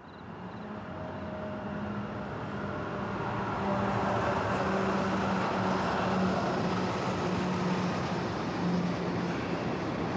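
The Overland passenger train arriving and running past close by: its rumble builds over the first few seconds and then holds steady, with a steady low hum running through it.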